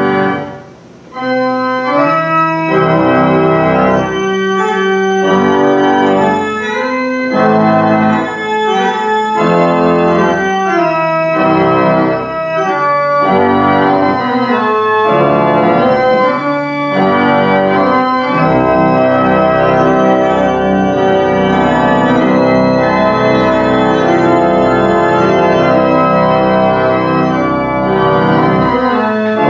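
A 1,972-pipe Aeolian pipe organ playing full, sustained chords that change every second or so. A short break comes about a second in, then the organ plays on without a pause.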